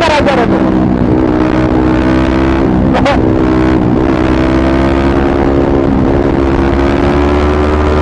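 Yamaha MT-15's single-cylinder engine through an aftermarket Akrapovic exhaust, pulling steadily in fourth gear at highway speed, its pitch creeping up near the end as the bike gains speed.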